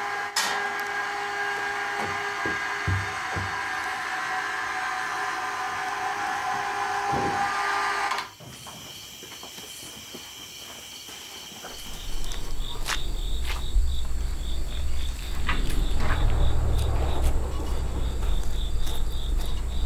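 Insects, crickets among them, chirping in a steady chorus. The sound changes abruptly about eight seconds in, and from about twelve seconds a low rumble and a few light clicks join.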